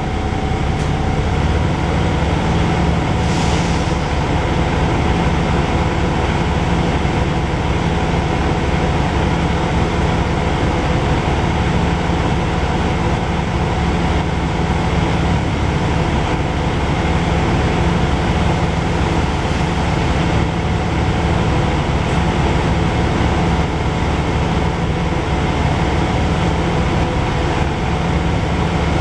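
Interior cabin noise of a Dennis Dragon double-decker bus under way: the engine and drivetrain hum builds during the first second, then runs steadily. A short faint hiss comes about three seconds in.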